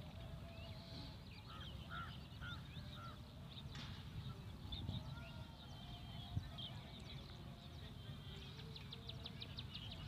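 Faint background birds chirping and calling, with a fast repeated trill near the end, over a low steady rumble.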